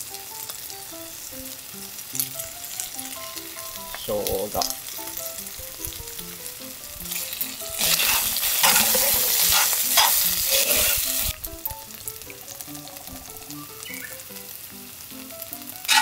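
Chicken and vegetable pieces sizzling as they fry in a stainless skillet on a gas camp stove, stirred with metal tongs that clink against the pan. About halfway through the sizzle swells loudly for some three seconds as the pieces are turned, then settles back.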